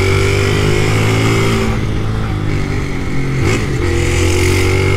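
Small motorbike engine running under throttle on the move, its pitch slowly rising, dipping briefly about three and a half seconds in, then climbing again.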